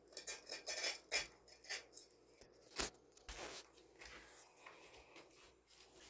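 Irregular light clicks, taps and rustles from a hand working a Harbor Breeze Tilghman ceiling fan's pull chains and glass light bowl, with sharper clicks about a second in and near the middle.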